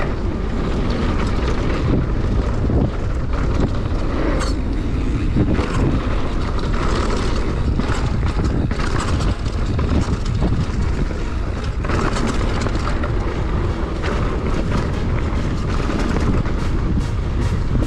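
Downhill mountain bike running fast down a dirt trail: a constant rush of wind and tyre noise, with the bike rattling and knocking over bumps throughout.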